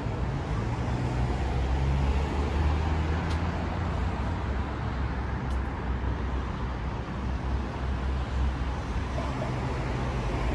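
City street traffic: a steady low rumble of car engines and tyres on the road, without a single vehicle standing out.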